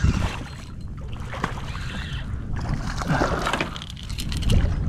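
Water splashing and lapping around a plastic fishing kayak, with wind rumbling on the microphone and a few light knocks of gear against the hull. A brighter splash comes about three seconds in.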